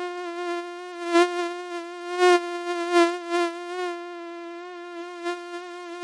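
Mosquito wings whining in flight: one steady, high-pitched buzz with a dense string of overtones, wavering slightly in pitch and swelling louder a few times.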